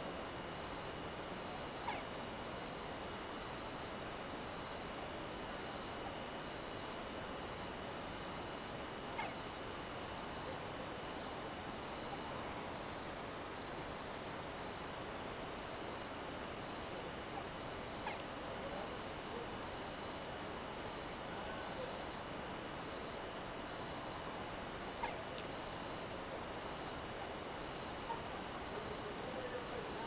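Night insect chorus: a steady, unbroken high-pitched trill, with a second, even higher insect layer that stops abruptly about halfway through. A few faint short calls sound now and then in the background.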